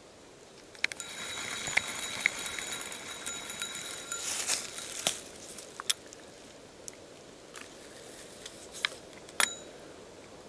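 Spincast fishing reel being cranked in, a steady whir lasting three to four seconds, followed by scattered sharp clicks and taps from handling the reel.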